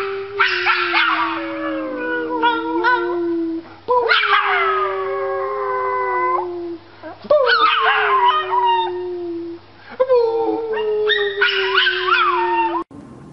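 A small puppy howling, a run of long drawn-out howls, each starting higher and sliding down in pitch, one about every three seconds, with short yipping breaks between them.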